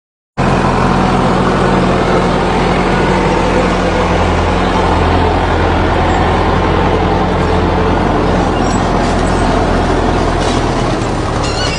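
Heavy engine of a farm machine running steadily close overhead, a loud, even low hum that starts abruptly about half a second in.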